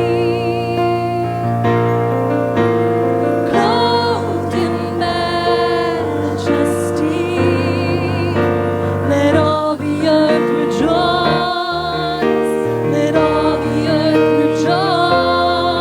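Gospel worship music: sustained keyboard chords under singing, the long held notes wavering with vibrato.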